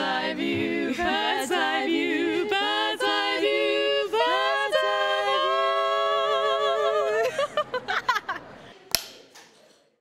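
Women singing unaccompanied, a line of held notes with vibrato stepping up and down in pitch, which breaks up into short bursts of laughter after about seven seconds; a single sharp knock comes about nine seconds in.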